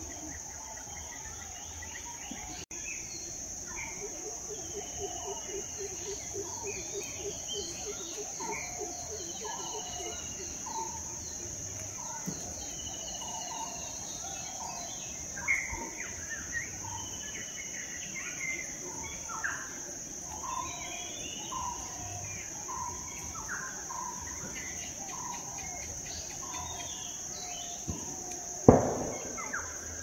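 Early-morning forest chorus: a steady high insect drone under many birds calling, with repeated short whistled notes, chirps and downward-sliding calls, and a fast low trill during the first third. A single loud thump sounds near the end.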